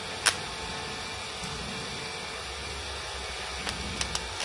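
Steady hiss with one sharp click about a quarter of a second in and a few fainter clicks near the end.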